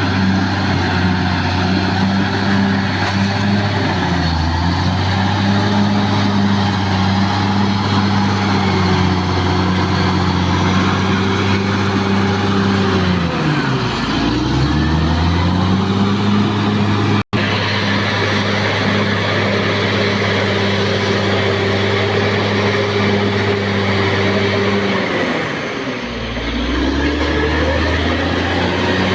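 Caterpillar D6R XL bulldozer's diesel engine running hard. Its pitch drops and climbs back up, briefly about four seconds in and deeply near the middle and again near the end, as the engine lugs down under load. A high whine rises and falls with the revs.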